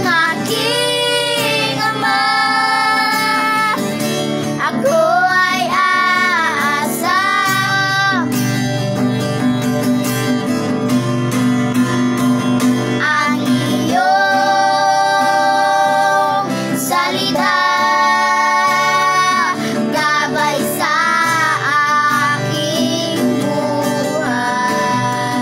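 A girl and a boy singing a Tagalog Christian song over acoustic guitar accompaniment, with long held, wavering notes. About halfway through the voices drop out for a few seconds and the guitar carries on alone before the singing resumes.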